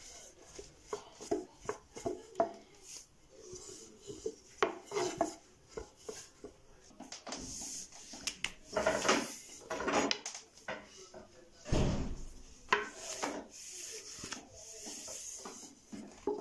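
Long thin wooden rolling pin (oklava) rolling a thin sheet of dough out on a wooden board: irregular wooden knocks and clacks as the pin is pressed and rolled, with a dry rubbing swish between them.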